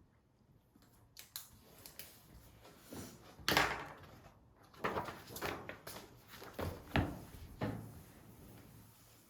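A few irregular knocks and scrapes of wood, like objects being moved about and set down, with soft rubbing in between; the loudest knock comes about three and a half seconds in.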